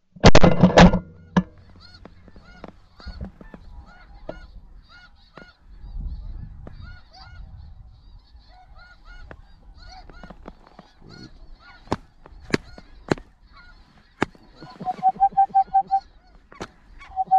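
Snow geese calling: a steady chorus of short, high, yelping honks. A very loud burst opens it, there are a few sharp cracks a dozen seconds in, and a fast, even run of honks comes near the end.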